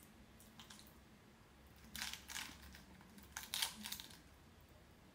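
Fork scraping and clicking against a bowl while scooping up salad: a few faint scrapes and clicks, the loudest about two seconds and three and a half seconds in.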